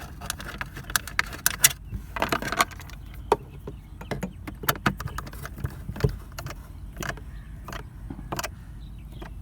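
Screwdriver and small screws clicking and clinking against the plastic glove box latch assembly as it is screwed back together: an irregular scatter of short, sharp clicks and rattles.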